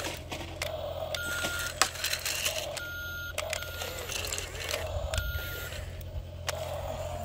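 Toy remote-control excavator driving over gravel: a steady electric hum with short electronic beeps that repeat about every one and a half seconds.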